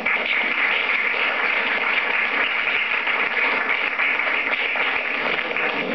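Audience applauding: steady clapping from a crowd of people.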